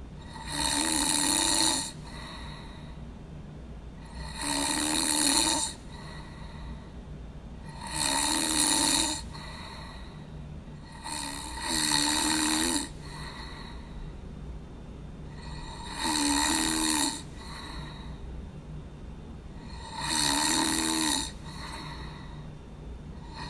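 A person snoring in a slow, regular rhythm: six loud snores, each lasting about a second and a half and coming roughly every four seconds, with a vibrating buzz in each. A low steady hum runs underneath.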